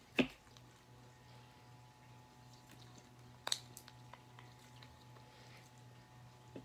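Fingers squeezing and poking glittery slime packed with foam beads: two sharp pops, the louder about a quarter second in and another about three and a half seconds in, with a few faint ticks between.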